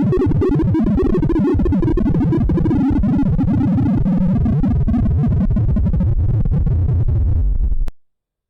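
Sorting-algorithm sonification of a pancake sort: a rapid, dense stream of synthesized beep tones, each pitch set by the value of the array element being accessed. It cuts off abruptly near the end.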